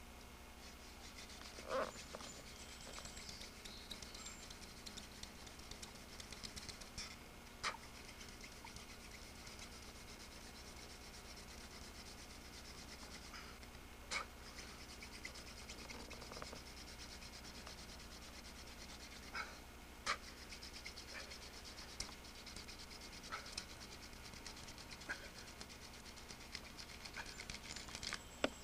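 Hand-drill friction fire: a wooden spindle extended with a cattail reed is spun between the palms in the notch of a fireboard, giving a faint, scratchy rubbing in long stretches, broken by a few short sharp knocks. It is the stage of drilling the board to raise an ember.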